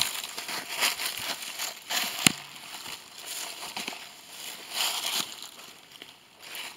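Footsteps crunching through dry leaf litter in irregular steps, with one sharp click about two seconds in.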